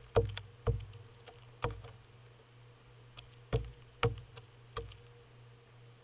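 Western gull pecking at birdseed on a railing, its beak striking the surface in six sharp knocks at irregular intervals, over a faint steady hum.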